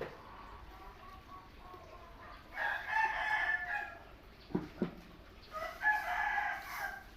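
A bird gives two long calls, each about a second and a half, with a couple of soft knocks between them.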